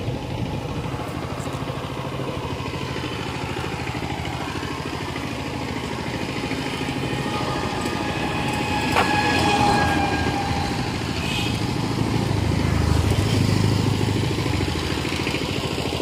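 A small engine running steadily with a low, even throb, swelling louder about halfway through and again near the end.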